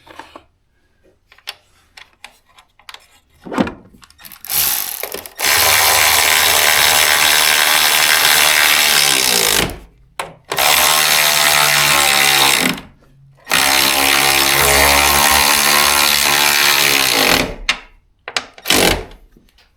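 A handheld power tool runs at full speed three times, for about four, two and four seconds, with its pitch dropping as the motor spins down after each run. A few light clicks and knocks come before the runs, and two short knocks come near the end.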